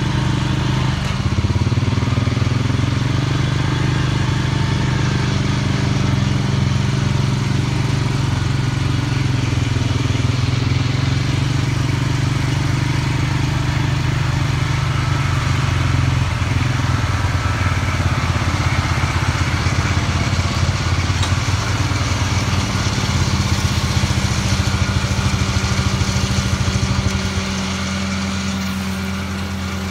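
Single-cylinder ATV engine running steadily under way, a loud, throbbing drone close by. About twenty-seven seconds in it drops to a quieter, steadier engine hum.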